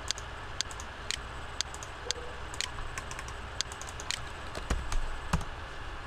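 Irregular clicking of a computer mouse and keyboard, a few clicks a second, over a steady low hum, with a couple of duller knocks about five seconds in.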